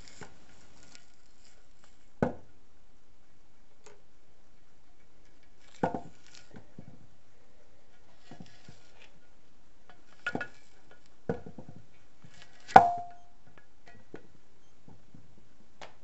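Metal scraper clicking and scraping against a removed steel differential cover as it is cleaned out, with five sharp knocks; the loudest, near the end, makes the pan ring briefly.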